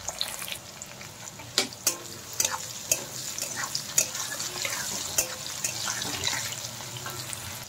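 Potato and carrot cubes frying in hot mustard oil in a steel kadai: a steady sizzle with many sharp clicks and scrapes as a metal spatula stirs them.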